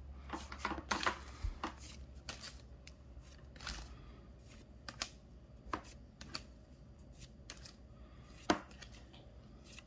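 Pokémon trading cards being handled: short, irregular clicks and flicks as cards are slid off the stack and held up, close together in the first couple of seconds and sparser after, the sharpest one about eight and a half seconds in.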